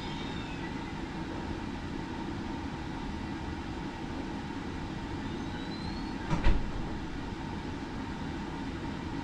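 Steady low rumbling noise, with one short thump about six and a half seconds in.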